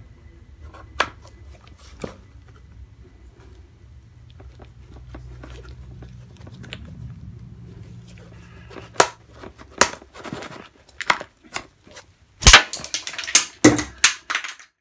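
Hard plastic clicking and cracking as the slider on a smart Roadster folding-roof spar is forced and wrenched off. A couple of single clicks come early, then a quick run of loud snaps and knocks fills the last five seconds before the sound stops abruptly.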